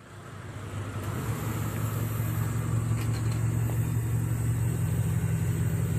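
Steady low mechanical hum from a wheelchair-accessible van with a wheelchair on its rear lift, fading in over the first second.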